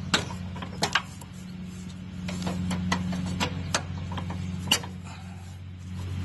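Sharp metal clicks and clinks of a cotter pin being worked free from the mower deck's hitch linkage, over a steady low hum.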